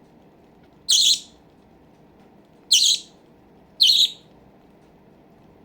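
Baby budgerigar calling: three short, loud, harsh high-pitched squawks, a couple of seconds apart.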